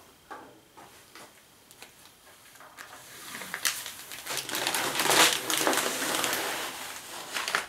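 Protective plastic film being peeled off a table saw's extension table: a crackling, ripping sound that starts about three seconds in and swells to its loudest near the middle. A few light clicks and rustles come before it.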